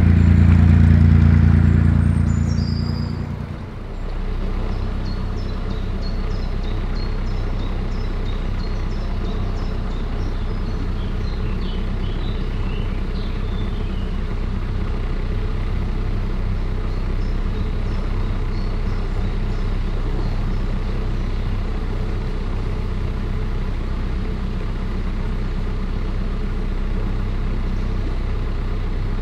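Narrowboat's diesel engine running steadily at cruising speed. In the first three seconds or so a louder engine, another narrowboat passing close alongside, swells and then fades out. Faint bird chirps come and go over the engine.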